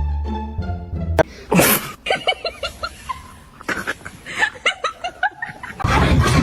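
Background music with plucked strings cuts off about a second in; a short sharp hissy burst follows, then a person laughing in short breathy bursts for about three seconds before the music returns near the end.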